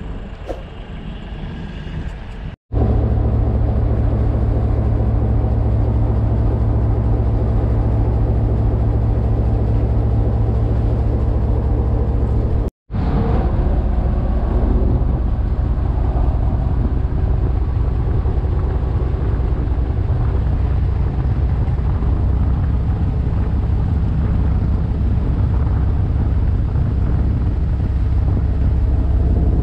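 An engine running steadily with a deep hum. The sound drops out for an instant twice, about three and thirteen seconds in.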